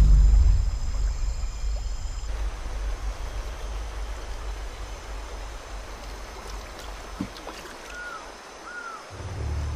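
A sudden deep boom that fades over about two seconds under a high steady ringing tone, then a river flowing, with a few short chirps. A low drone comes in near the end.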